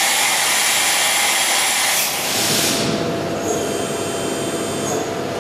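VMC 600e CNC vertical machining centre running a tool change from its carousel. A loud, steady hiss carries on until a brief swell between two and three seconds in, then cuts off. It leaves a quieter mechanical hum with a faint high whine.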